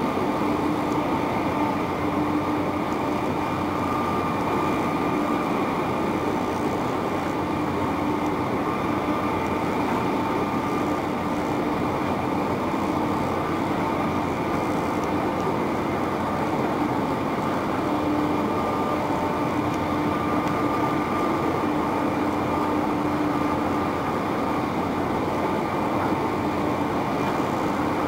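Ferry's diesel engines and machinery droning steadily as it manoeuvres close in, with several held tones over the rumble.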